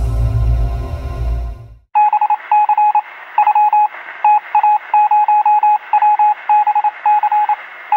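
A rumbling electronic sound effect fades out about two seconds in. It is followed by a run of short electronic beeps in quick, uneven clusters, a computer-style typing sound effect.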